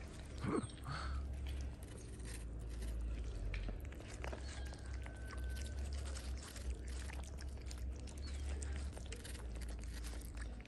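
A kitten chewing and smacking on chunks of wet cat food close by, heard as many small quick clicks, over a steady low rumble.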